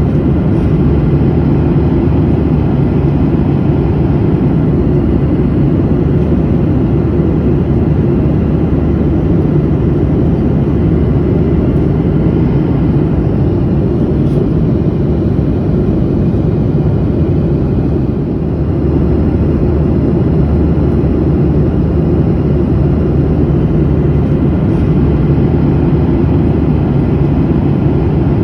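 Airplane in flight, heard from inside the cabin: a steady, deep, even noise of engines and airflow, with a brief slight dip in level about two-thirds of the way through.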